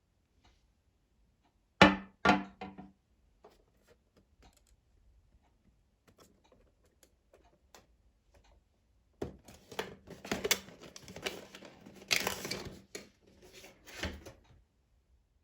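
Packaging being handled on a hard surface: two sharp knocks about two seconds in, then a few seconds of clicking, scraping and rustling later on.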